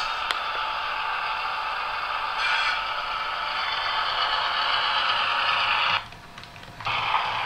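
Diesel engine sound from the onboard loudspeaker of a Piko H0 class 216 model locomotive with a sound decoder: a rough, hissy, thin-sounding engine noise with little bass. About six seconds in it cuts out for nearly a second and then comes back, the sign of the model briefly losing track power at a dirty spot.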